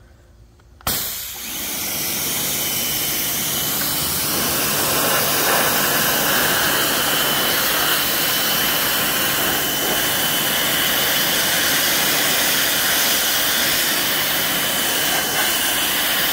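Pressure washer kicking on about a second in and then running steadily, a hissing spray with a thin high whine through it, as it rinses foaming coil cleaner off an aluminum A/C coil's fins.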